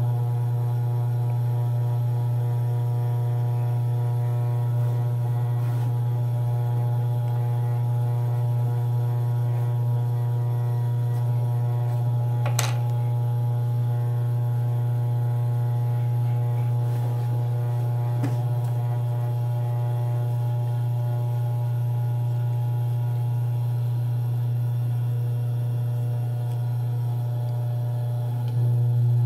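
Industrial sewing machine's motor running idle with a steady low hum. Near the end the machine begins stitching.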